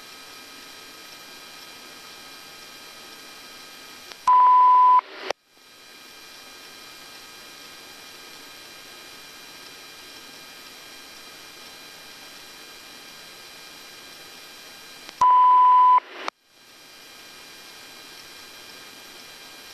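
Steady hiss of the police helicopter's cockpit audio feed with its engine left running after landing. Twice a loud, pure, single-pitch beep cuts in for under a second, each time ending in a click and a brief dropout before the hiss returns.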